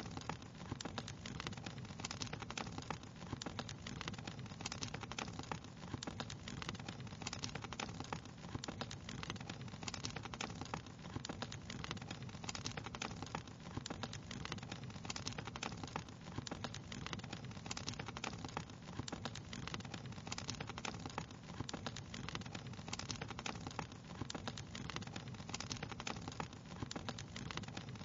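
Wood fire crackling steadily, a dense run of small irregular pops and snaps over a low, even hiss of burning.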